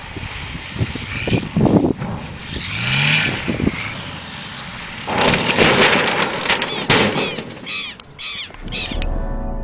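Light single-engine propeller aircraft flying low and coming in to land, recorded outdoors with wind buffeting the microphone. Its engine note glides briefly upward about three seconds in. A loud rush of noise about five seconds in, lasting a couple of seconds, comes as the plane crashes and skids on landing.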